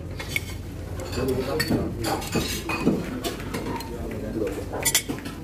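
Plates and serving utensils clinking at a buffet: scattered sharp clinks, the loudest pair near the end, over murmured voices.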